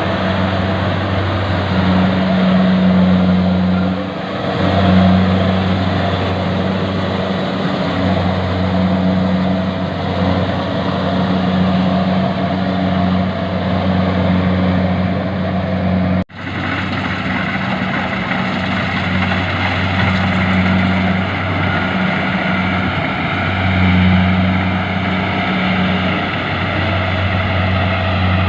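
Engine of harvesting machinery running steadily with a low drone that swells and dips a little. It breaks off for an instant about sixteen seconds in and carries straight on.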